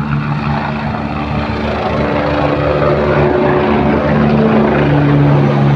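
Helicopter taking off and climbing overhead: steady rotor and turbine noise with several held tones that shift in pitch, growing louder towards the end.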